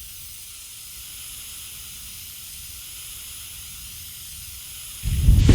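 Flamethrower: a steady, high-pitched hiss, then about five seconds in a sudden, much louder, deep blast of fire.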